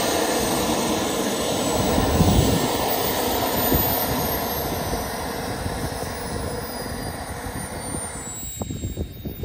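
JetMunt 210 model turbine of an RC L-39 jet running at high power: a loud rush with a high whine that slowly falls in pitch and fades as the jet rolls along the runway. Near the end the rush cuts off suddenly, leaving a few knocks.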